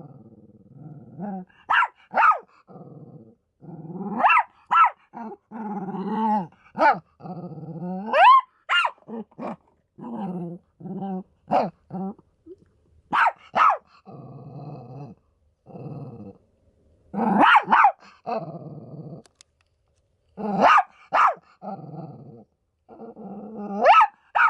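A dog growling and barking at a vacuum cleaner it is fighting: stretches of low, rough growling broken by short, sharp barks at irregular intervals.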